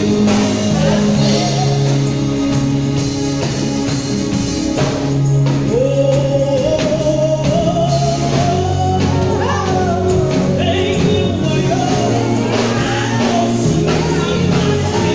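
Live gospel music: a woman singing into a microphone over a band with a drum kit and a steady bass line. Her voice holds long notes that climb about halfway through.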